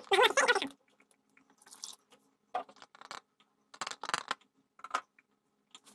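Handling noise of a plastic funnel and work gloves on a car battery's plastic top: a short burst of rustling at the start, then scattered light plastic clicks and taps.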